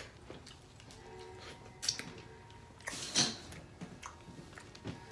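Person eating a seafood boil: a handful of short wet mouth noises and clicks, the loudest about three seconds in, over faint background music.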